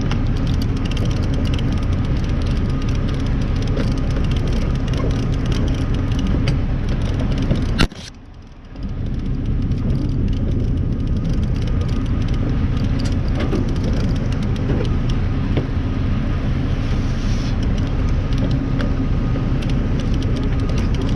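Fishing boat's engine running steadily underway, a low rumble with a rush of water from the wake. After a sharp click about eight seconds in, the sound cuts out for about a second before returning.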